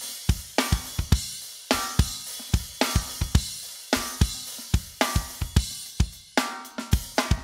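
Rock drum groove on a kit featuring a 14x5 steel-shell Sonor ProLite snare with a single-ply coated Controlled Sound head, tuned high and left unmuffled, so each backbeat cracks and rings. Kick drum and cymbals play underneath, with a crash and a quick run of strokes near the end.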